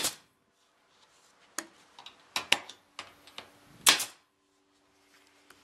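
Pneumatic stapler firing half-inch staples through a trailer's sheet-metal skin into the wooden framing: several sharp shots at uneven spacing, the loudest about four seconds in.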